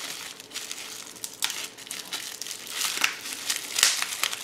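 Crinkling, rustling handling of packaging, with a few sharp clicks, the loudest a little before the end.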